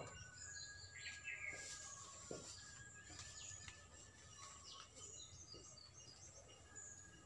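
Faint birdsong: scattered short chirps and calls from small birds, over a quiet steady background.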